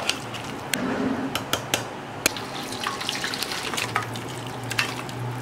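Metal ladle stirring thick mutton curry in an aluminium pressure cooker, with repeated sharp clinks and scrapes of metal on the pot. Partway through, the curry is poured out of the tipped cooker into a steel bowl.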